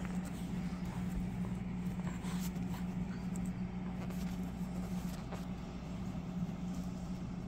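Steady, even hum of a room air conditioner running, with faint rustles and soft ticks from a dog shifting on bedding.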